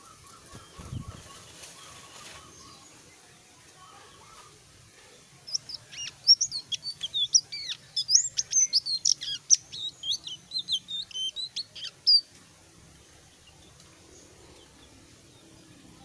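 Caged selendang biru songbird singing a fast, varied run of high notes that rise and fall, lasting about six seconds from around five seconds in: the bird beginning to come into full song. A soft low thump about a second in.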